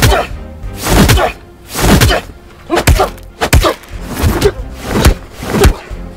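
About eight heavy hits, roughly one a second, each with a short falling tone, over music.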